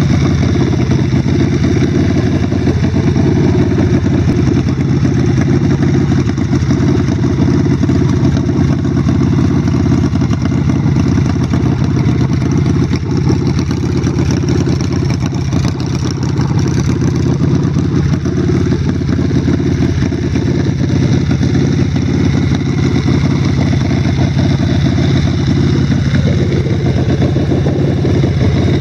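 Custom chopper's 100-cubic-inch El Bruto air-cooled V-twin running at a steady idle.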